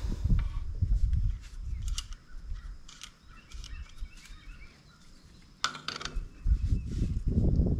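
Handling noise of a Briggs & Stratton engine's overrunning clutch being fitted by hand on the crankshaft, then a sharp metal click about five and a half seconds in as a wrench goes onto it, with a low rumble around it. Birds chirp faintly in the background.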